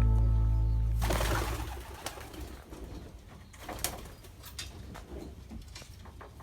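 A music track fades out in the first second. Then pigeons coo softly, with scattered light clicks and rustles.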